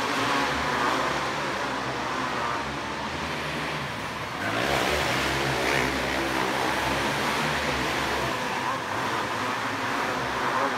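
A pack of 500cc outlaw cage karts racing on a dirt oval, their engines running hard together with revs rising and falling through the corners. The sound grows louder about four and a half seconds in as karts pass close.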